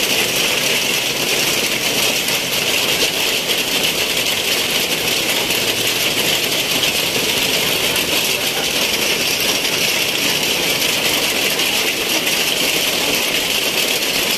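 Heavy rain falling in a steady downpour, an even hiss with no let-up.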